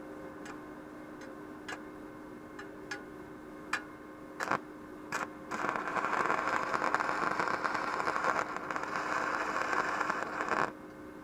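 Welding arc from a MIG-250MT welder: a string of separate sharp pops as the arc catches and breaks, then a steady crackling sizzle of a held arc for about five seconds that cuts off abruptly, over a steady low hum.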